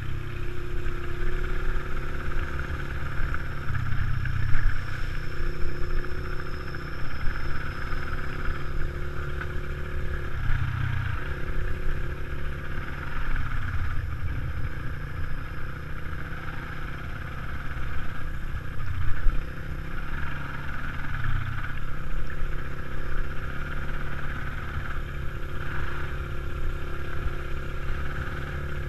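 Dirt bike engine running at trail speed. Its note drops and picks up again several times as the throttle is eased and reopened, with a few knocks and rattles from bumps in the trail.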